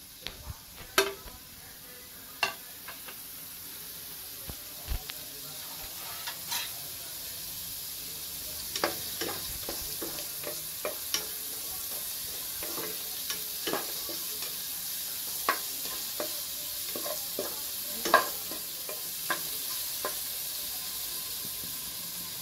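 Paneer cubes sizzling in hot oil in a frying pan, the sizzle growing steadily louder as the pan heats. A wooden spatula stirs them, with frequent short scrapes and taps against the pan.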